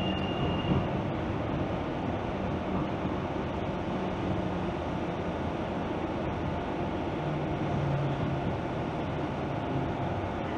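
Steady running noise of a TTC streetcar heard from inside the car: wheels on the rails under a low motor hum, which swells briefly about seven seconds in.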